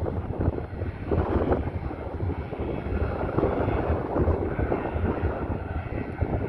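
Kitfox light aircraft's engine and propeller running steadily, with wind gusting on the microphone.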